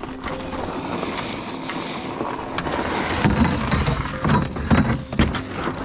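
Loaded canoe hull sliding and scraping over snow and ice as it is pushed toward the water. A steady rushing scrape gives way about three seconds in to a series of bumps and knocks.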